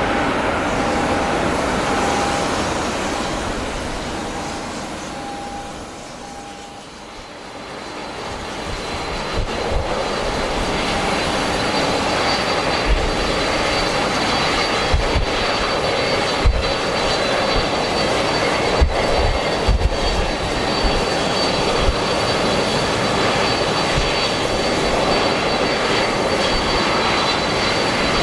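Jet airliner engines running loud, with a steady high whine that comes in about a third of the way through. Strong typhoon wind buffets the microphone with irregular low thumps.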